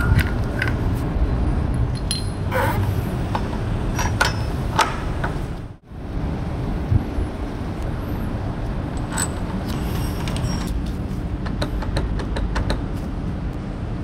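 Light metallic clicks and clinks of new brake pads and a motorcycle brake caliper being handled and fitted, over a steady low background rumble; the sound cuts out abruptly a little before halfway, then the rumble and scattered clicks resume.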